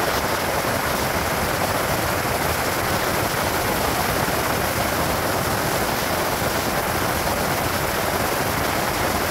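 Steady rush of wind and tyre noise from a car driving at speed on a racetrack, with no engine note standing out.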